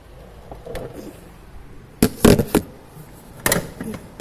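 Two bursts of sharp clattering and knocking from hard kitchen items being handled on a counter: a cluster of knocks about two seconds in, then another about three and a half seconds in.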